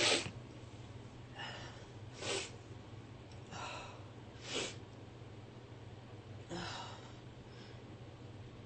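A woman's sneeze ending right at the start, then five short, sharp sniffs through the nose spread over the next several seconds, during a fit of repeated sneezing.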